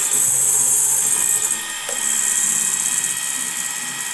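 Electric hand mixer whirring as it whips eggs and sugar to a foam, dipping briefly about one and a half seconds in.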